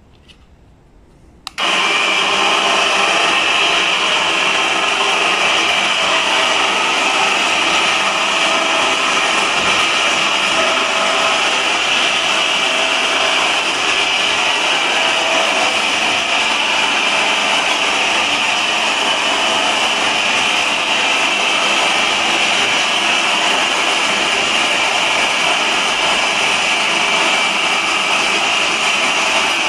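12 V electric winch motor running steadily under load, lowering a wooden wheelchair platform lift on its cables. The loud, steady motor whine starts about a second and a half in and does not change.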